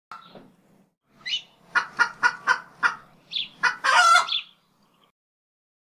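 Chicken clucking: a run of five short clucks, about four a second, then a longer, louder call.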